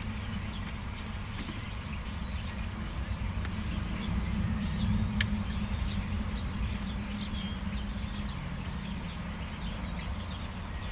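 Steady low rumble of outdoor background noise, with small high chirps repeating about once a second and a few faint sharp clicks.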